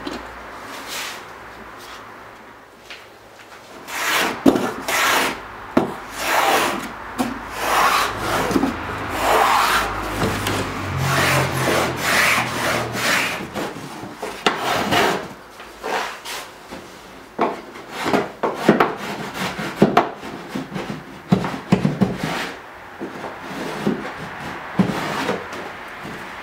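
A small hand plane shaving cedar strips on a canoe hull: irregular rasping strokes of blade on wood, beginning about four seconds in and repeating every second or so.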